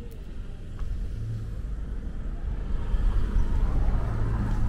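A motor vehicle's engine and tyres rumbling close by, getting louder from about a second in as it approaches.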